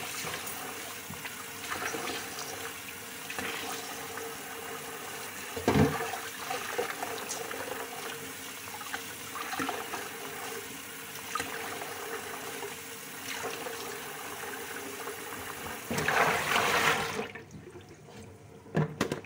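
Kitchen tap running into a stainless steel sink while hands squeeze and wash spongy boiled wheat gluten (kaofu) in the stream, with louder splashing about six seconds in and again near the end. The water stops about two seconds before the end.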